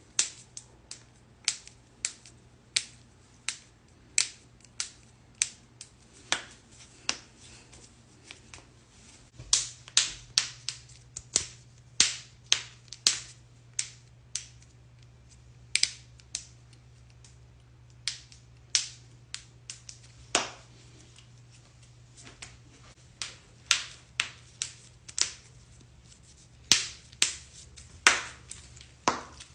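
Knuckles cracking: dozens of sharp joint pops, one after another at irregular spacing, often one or two a second and sometimes in quick pairs.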